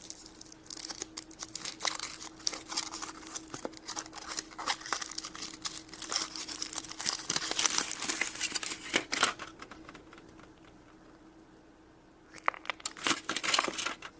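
Foil wrapper of a chocolate egg crinkling and crackling as it is peeled off by hand, in a long run of rustles, a pause, then a short final burst near the end.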